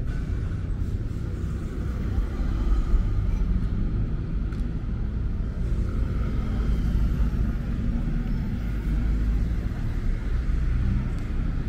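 Road traffic on a city street: a steady low rumble of vehicle engines and tyres, swelling a little as vehicles pass close by.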